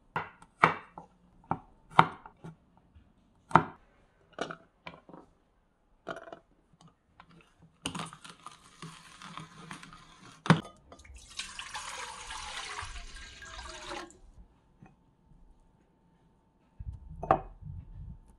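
Garlic cloves dropped one by one into a small plastic garlic chopper cup, a series of sharp knocks. Then the chopper runs for a few seconds with a steady buzz whose pitch falls as it goes, mincing the garlic. A short rustle and knock comes near the end.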